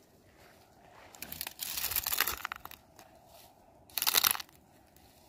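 Dry, leafless thorny brushwood crackling and crunching as it is handled and trampled underfoot. There is a rustling crunch lasting over a second, about a second in, then a short, sharper crunch about four seconds in.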